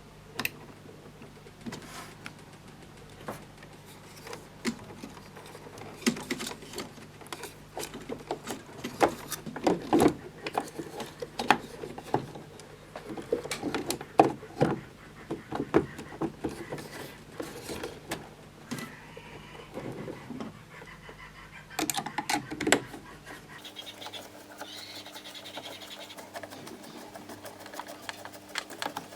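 Irregular clicks, knocks and rattles of screwdrivers and plastic and metal parts being handled while a Jura Z5 espresso machine is being taken apart, over a steady low hum that stops about three-quarters of the way through.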